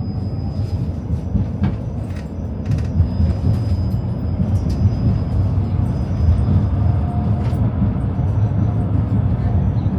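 Tram running between stops with the steady low rumble of its wheels on the rails, scattered clicks from the track joints, and a faint steady high whine, heard from inside the car.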